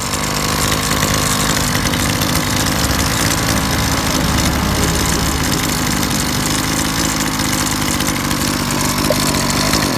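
Zenoah Komatsu BKZ3050 brush cutter's 30cc two-stroke engine idling steadily with a crisp note. It cuts off at the very end.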